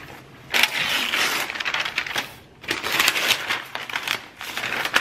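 Cardboard and paper packaging of a new laptop box being opened by hand, with rustling and tearing noises in three bursts: a long one from about half a second in, a shorter one near the middle, and another near the end.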